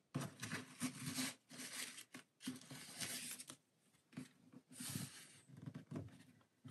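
Soft rustling and handling noises in short irregular bursts as the ribbon tie of a hardcover clamshell box is pulled loose and the box is handled.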